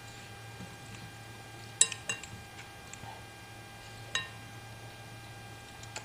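Cutlery clinking against a bowl a few times, the loudest clink about two seconds in, over a steady low electrical hum.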